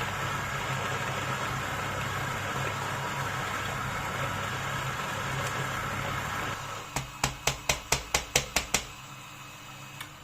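Niche coffee grinder running as it grinds espresso beans, a steady motor sound that drops about six and a half seconds in. Then a quick run of about nine sharp taps, roughly five a second, and the sound fades out.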